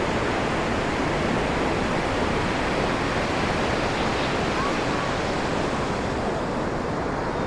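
Ocean surf: a steady wash of breaking waves, its hiss easing a little near the end.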